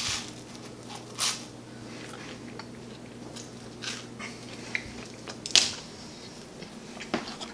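Someone eating a slice of peanut-butter toast topped with jalapeno slices: a few sharp crunches of toast and scattered small chewing and handling clicks, the loudest crunch about five and a half seconds in.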